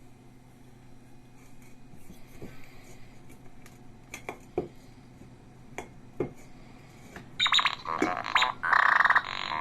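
A few light clinks of the ceramic jar, then, about seven seconds in, the BB-9E cookie jar's sound module plays loud electronic droid beeps and chirps.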